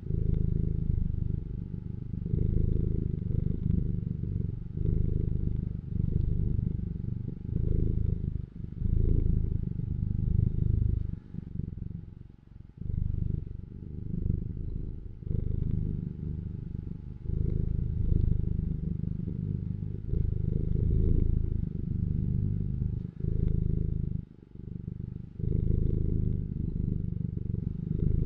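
Domestic cat purring: a low, steady rumble that swells and dips with each breath, every second or two, with a longer break about twelve seconds in and again near the end.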